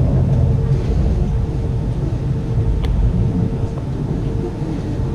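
Steady low rumble of a 25T passenger coach running along the track, with a steady hum over it and a single sharp click about three seconds in.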